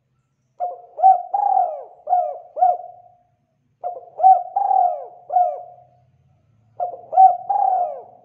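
Spotted dove (tekukur) cooing: three phrases of about five coos each, separated by short pauses.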